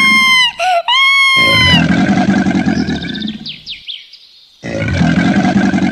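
A cartoon crocodile's growling sound effect, loud and rough, in three long stretches that break off briefly near the start and for about a second around four seconds in. A high squealing cry, the duck being bitten, sounds over it at the start and again about a second in.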